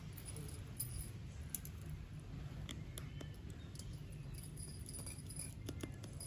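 Faint, scattered small clicks and light metal ticks of a precision screwdriver working the screws of a smartphone's rear camera bracket, over a low steady hum.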